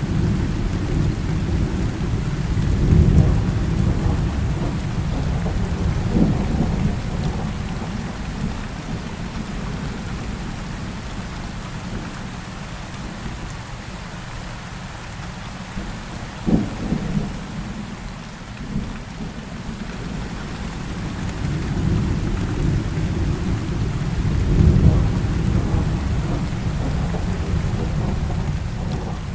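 Heavy rain falling steadily, with thunder rumbling: long low rolls that swell near the start and again near the end, and a short sharper crack about halfway through.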